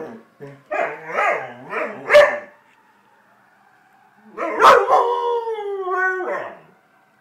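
Dog yips and whines in a few short calls, then gives one long howl that slides down in pitch, howling along with a faint fire-engine siren.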